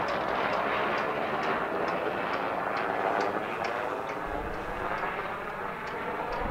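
Piper Turbo Arrow IV light plane's propeller engine running as it taxis, a steady drone that eases off a little after about four seconds, with a faint regular ticking about twice a second.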